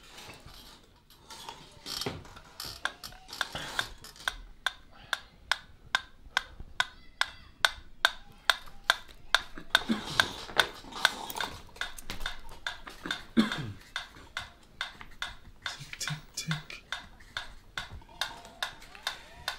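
Mechanical pendulum metronome ticking at a steady beat, starting a few seconds in, with a few low falling whooshes laid over it.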